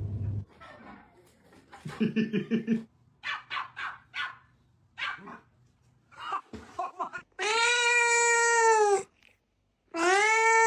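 A cat meowing: several short meows, then two long, loud, drawn-out yowls in the second half.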